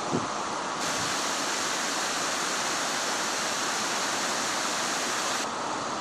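River water rushing steadily over rocks and shallow rapids.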